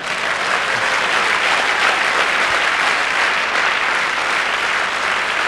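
Audience applauding: many people clapping at once in a dense, steady wash of claps.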